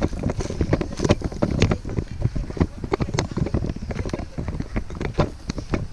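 Footsteps crunching on a forest trail, a quick irregular run of knocks, with wind buffeting the microphone in a low rumble.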